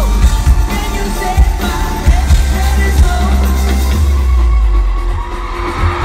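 Live band playing loud: singing over drums with a heavy bass, several sharp drum hits, picked up by a phone in the crowd.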